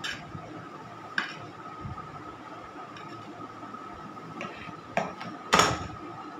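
Cake-decorating tools, a palette knife and a plastic scraper, being picked up, set down and knocked against hard kitchen surfaces: a few sharp clinks, the loudest about five and a half seconds in.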